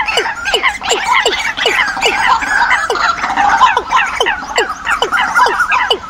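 Recorded bird calls played as a decoy lure, several birds overlapping: a low note falling in pitch repeats about three times a second under dense, higher squawking and chattering calls.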